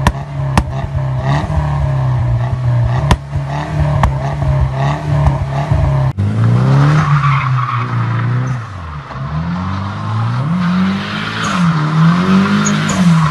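Sports car exhaust at a steady idle, punctuated by sharp pops and crackles. After a cut about six seconds in, a car drifts: engine revs rise and fall repeatedly over continuous tyre squeal.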